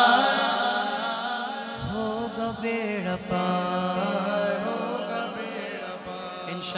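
Unaccompanied naat singing: a male lead voice sings a drawn-out, wavering melodic line. Under it, backing voices hold a steady drone.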